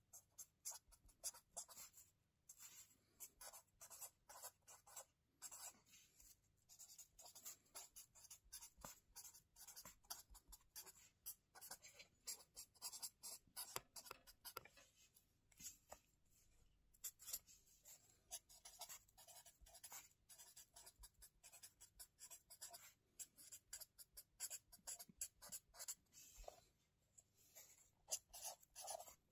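Faint writing on a spiral notebook's lined paper: many quick scratching strokes in close runs, broken by short pauses between letters or words.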